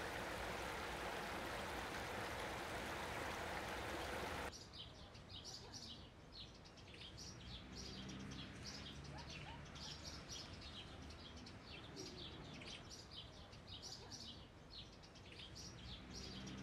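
Shallow rocky stream running with a steady rush. About four and a half seconds in, it cuts to quieter outdoor sound with songbirds chirping, many short high notes.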